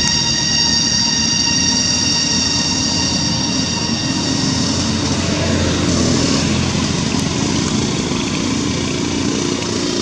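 Cicadas droning at dusk: a steady, loud high-pitched whine with several even overtones, over a low rumble.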